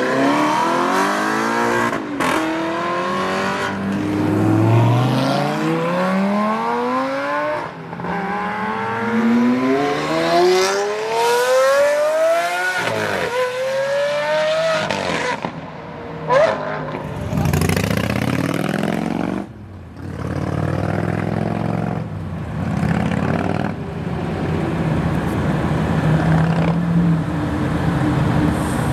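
Supercar engines, from a widebody Audi R8 and Lamborghini Aventadors, accelerating hard one after another. Their pitch climbs through each gear and falls back at every upshift. A single sharp bang comes about halfway, and for the last third an engine runs at low, steady revs as a car rolls closer.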